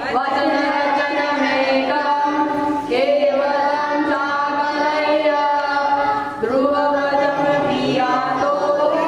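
A group of children's and adults' voices singing a chant-like song in unison into microphones, with long held notes; new phrases begin about three and six and a half seconds in.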